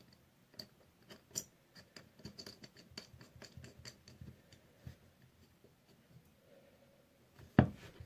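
Small clicks, ticks and scratches of hands working a battery's red lead and connector in a plug clamp, with one sharp knock near the end.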